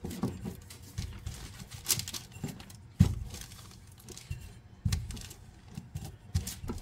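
A glass jar rolled and pressed over biscuit dough on parchment paper on a countertop: irregular dull thumps and knocks with short clicks, the loudest about three seconds in.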